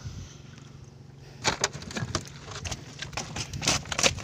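Irregular clattering and rustling of a plastic-mesh fish trap being handled, starting about a second and a half in and growing louder near the end, over a steady low hum.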